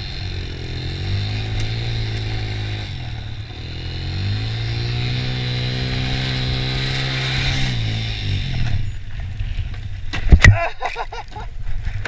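Honda TRX90 quad's small single-cylinder four-stroke engine revving up and easing off twice as it is ridden, then dropping back after about nine seconds. A sharp loud knock comes about ten seconds in.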